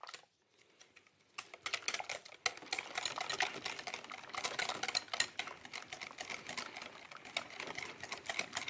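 Wire whisk beating thick yeast pancake batter in a glass bowl. The wires make rapid, irregular clicking and tapping against the bowl, starting about a second and a half in.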